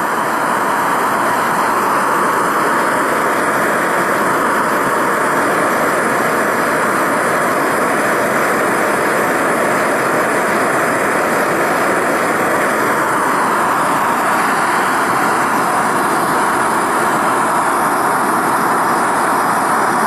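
Bernzomatic air/propane hand torch burning into a small furnace's firebox: a loud, steady, even rush of flame noise. A faint hum within it drops slightly in pitch about two-thirds of the way through.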